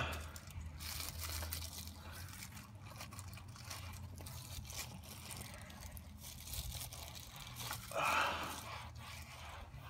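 Engine oil draining in a steady stream from the open drain-plug hole of a 2014 Mazda 3's oil pan into a drain pan, with a brief louder noise about eight seconds in.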